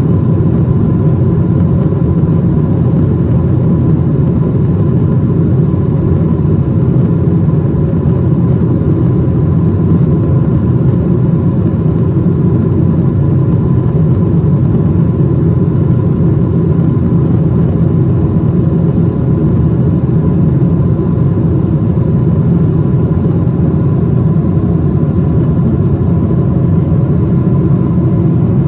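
Boeing 777-200ER passenger cabin in flight: steady engine and airflow noise, a deep rumble with a faint high tone held over it.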